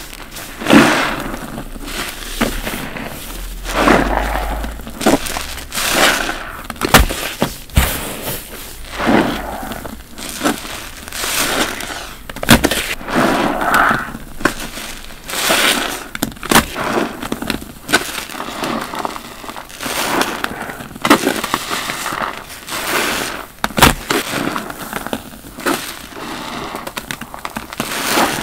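Soapy foam bath sponges squeezed over and over by gloved hands in a sink of thick lather, each squeeze a wet squelch with crackling foam and water squirting out.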